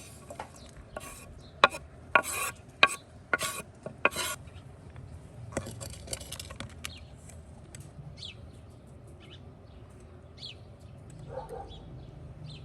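Cooking utensils and cookware knocking, clinking and scraping during food preparation: a quick run of sharp knocks and scraping strokes in the first few seconds, then only light handling.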